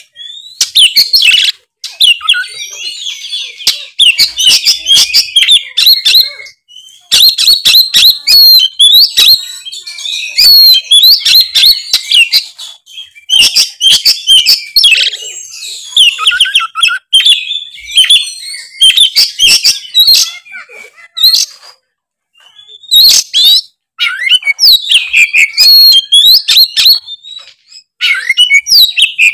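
Oriental magpie-robin (kacer) singing loud, rapid, varied song in bouts of a few seconds broken by short pauses: the full, vigorous song of a bird in top singing form.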